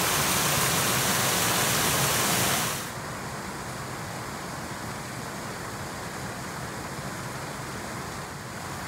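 Water pouring into a pond's overflow drain through a metal grate, a loud steady rush that cuts off about three seconds in. It gives way to a fainter steady hiss.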